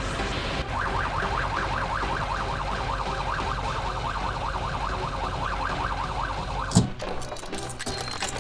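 A fast warbling siren sound effect, rising and falling about four times a second over a steady hiss. A single sharp thump a little before the end cuts it off.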